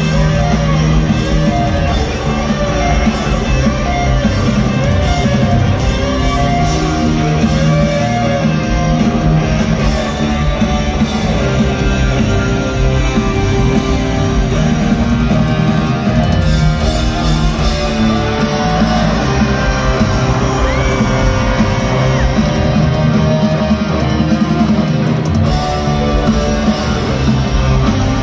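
Live rock band playing an instrumental passage on electric guitars, bass and drums, loud and continuous, heard from within the crowd in a concert hall.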